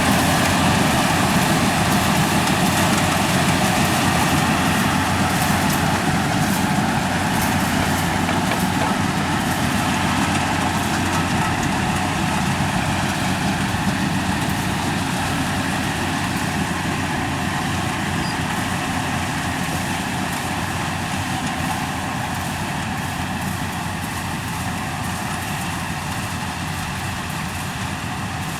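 Yanmar combine harvester's diesel engine and machinery running steadily while harvesting rice, slowly growing fainter.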